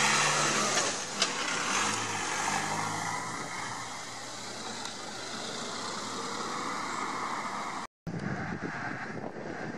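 Fire-service Ford Transit minibus driving past close by and pulling away, its engine and tyres loudest at first and then fading, with a sharp click about a second in. After a brief break near the end, steady noise of traffic on a busy road.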